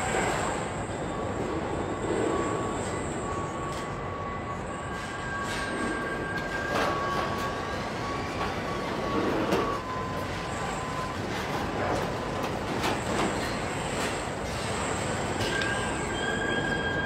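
Car body-shop machinery running: KUKA industrial robot arms and the assembly line make a steady mechanical din, with thin whining tones that come and go and a few short clicks and hisses.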